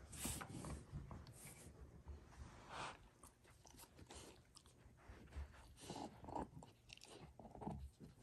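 Rottweiler puppy gnawing a bone: faint, irregular crunches of teeth on the bone.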